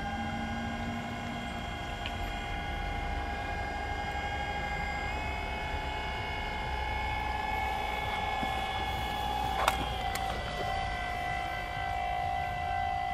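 Steady high electric-motor whine from a radio-controlled model ship's drive, holding one pitch and dipping slightly near the end, with a single sharp click about ten seconds in.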